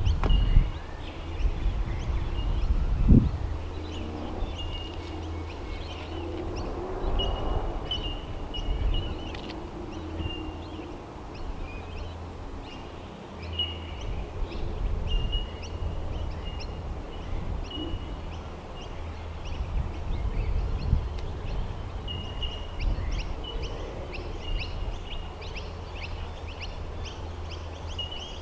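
Outdoor birdsong: a short high note repeated every second or so, with scattered faint chirps, over a steady low rumble. One sharp thump about three seconds in.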